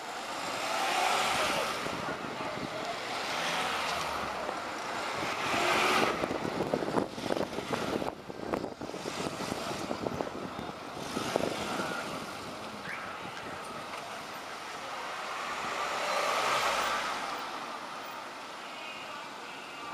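Road noise of a moving bus in town traffic, swelling and fading several times as it drives and other vehicles pass, with a spell of rattling and knocks about seven to nine seconds in.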